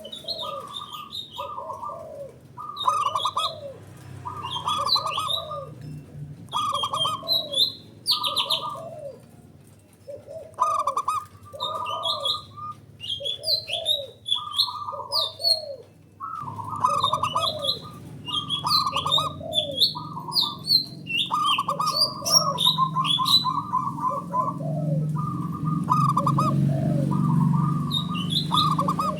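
Zebra doves (perkutut) cooing back and forth, their rolling, trilled coos repeating every second or so, with higher chirps between the phrases.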